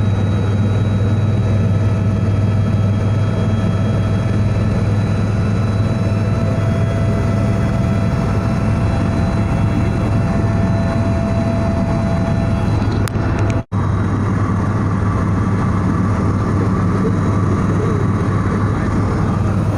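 Helicopter in flight heard from inside the passenger cabin: a loud, steady engine and rotor drone with a deep hum beneath it. The sound drops out for an instant about two-thirds of the way through.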